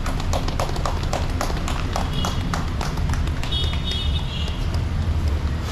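Quick footsteps tapping on pavement, thickest in the first half, over a steady low rumble as the car pulls slowly out. A few short, high chirping tones come in about two seconds in and again near four seconds.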